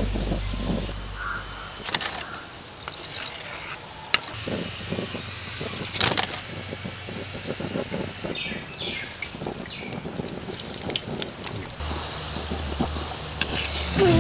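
A steady high-pitched insect drone, with a few sharp clicks and a stretch of light crackling in the second half.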